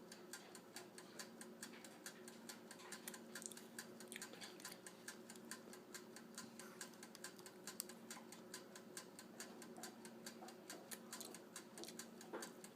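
Toaster oven's mechanical timer ticking, faint, rapid and even, over a low steady hum from the running oven.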